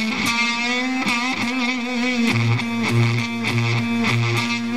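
Stratocaster electric guitar played through a germanium fuzz pedal (Shrimp Pistol Stun): a held, sustained note wavering in pitch, with a low note struck several times in the second half.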